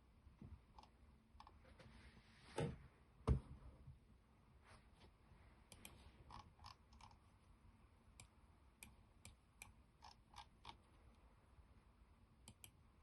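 Faint, irregular clicking of a computer mouse and keyboard while maps are brought up on screen, with two louder knocks a few seconds in.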